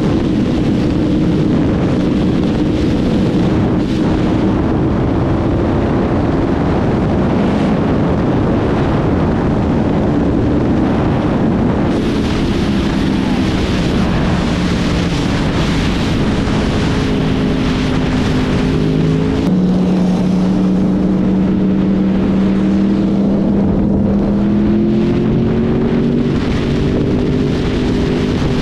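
Yamaha sport motorcycle's engine running at road speed under heavy wind rush on the microphone. The engine note slowly sinks, jumps to a new pitch about twenty seconds in, and climbs again near the end.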